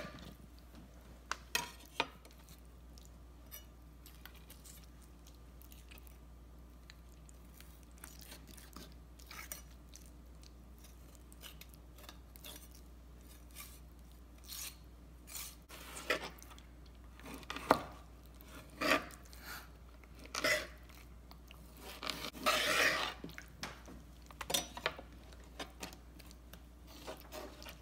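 Chef's knife cutting raw chicken on a cutting board: a few faint taps at first, then from about halfway a run of knocks of the blade on the board and crunching cuts through bone and cartilage, the loudest a single sharp knock.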